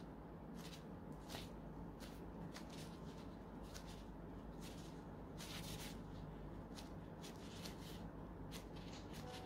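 Faint, irregular rustling and crinkling of thin plastic disposable gloves as hands fold and pinch shut a filled qatayef pancake, over a steady low hum.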